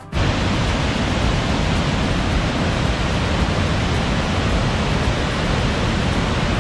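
Steady rush of white water pouring over a waterfall and rapids in a rocky river gorge.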